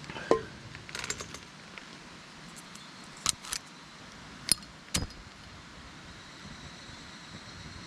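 Small metal objects being handled: a short jingle about a second in, then several separate sharp clinks and knocks, over a steady background hiss.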